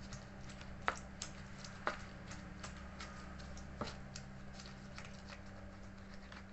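Stone pestle working a spice paste with tomato in a stone mortar (ulekan): irregular light taps and squishy grinding, with sharper knocks about one, two and four seconds in.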